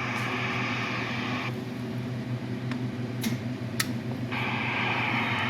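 CB radio receiver hissing over a steady low hum. The hiss cuts out for about three seconds in the middle, with a few sharp clicks, and then comes back. The operator takes it for a dead key: a station keying its microphone without talking.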